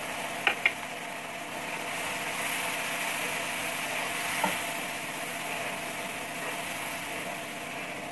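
Onion-tomato masala with freshly added ground spices sizzling steadily in a wok as it is stirred with a wooden spatula, at the stage of frying the spices. A couple of light clicks about half a second in.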